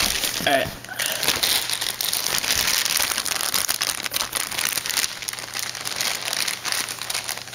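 Packaging crinkling and rustling continuously as it is handled, starting about a second in.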